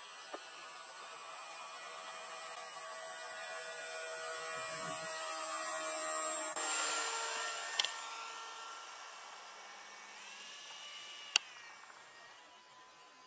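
ZOHD Nano Talon RC plane's electric motor and pusher propeller whining as it makes low passes. The sound grows loudest as the plane comes past about six and a half seconds in, then drops in pitch and fades. A few brief sharp clicks come through, the loudest about eleven seconds in.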